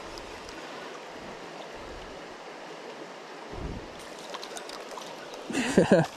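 Creek water running steadily, then about five and a half seconds in a short, loud splashing burst as a hooked rainbow trout thrashes at the surface.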